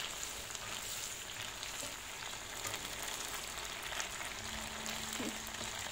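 A leunca and tauco stir-fry simmering in a frying pan with added water, giving a steady sizzle while the palm sugar dissolves into the sauce.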